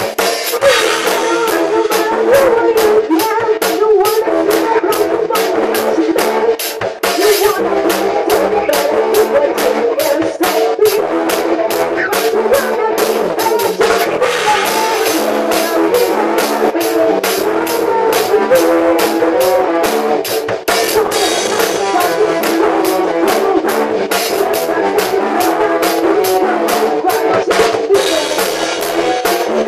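Drum kit played at a steady beat, with cymbal or hi-hat strikes about three times a second, over loud droning music in the middle range.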